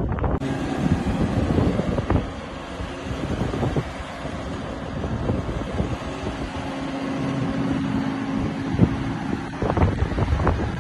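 Range Rover SUV's engine running as it ploughs slowly through soft sand, a steady hum under wind buffeting the microphone.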